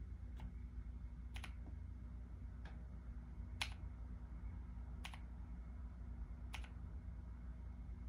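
Single keypresses on a Womier K87 mechanical keyboard fitted with Gateron Brown tactile switches: six separate clacks, a second or so apart.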